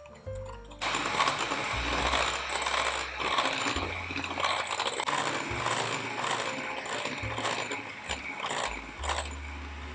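Electric hand mixer running, its wire beaters whisking in a glass bowl with an irregular rattle against the glass. It starts about a second in and stops just before the end.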